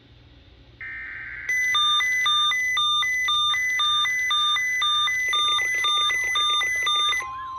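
NOAA Weather Radio emergency alert signals for a required weekly test: a short burst of raspy digital SAME header data, then a rapid repeating pattern of high electronic beeps alternating in pitch at about three a second. Falling warbling sweeps join the beeps after about five seconds, and near the end a steady warning alarm tone begins.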